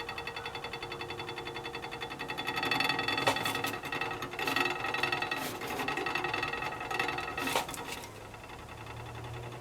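Hot water tank rattling and buzzing as it heats up: a rapid, even rattle that grows louder and rougher with sharp clicks from a few seconds in, then eases off near the end. The cause of the rattle is not known.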